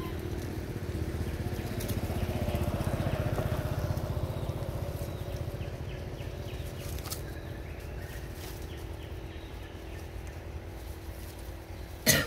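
A vehicle engine passing by, growing louder about two seconds in and then fading away. A brief, loud, sharp sound comes near the end.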